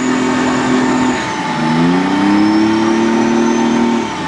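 LAV-25 armored vehicle's diesel engine running, then revving up about one and a half seconds in and holding the higher revs before easing off near the end. A steady whine runs over it.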